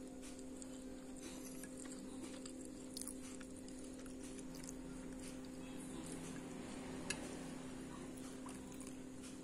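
Faint steady hum on a low tone, with a few light clicks of a metal spoon against a glass plate; the sharpest click comes about seven seconds in.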